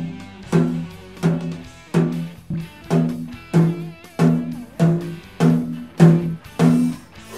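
Snare drum struck with a stick about once every two-thirds of a second, each hit ringing with a clear, drawn-out pitch while its heads are being tensioned during tuning.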